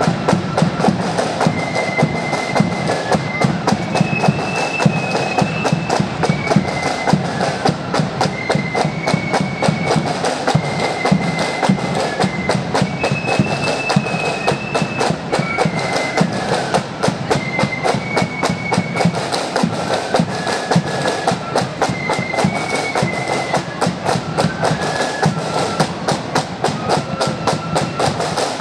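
Marching flute band playing: snare drums beating rapidly over a bass drum, with flutes carrying a high melody above them.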